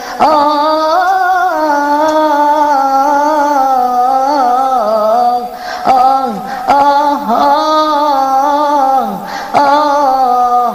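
Solo singer holding long, ornamented vowel notes with vibrato and melodic turns, in Egyptian tarab style, with short breaks about halfway and near the end.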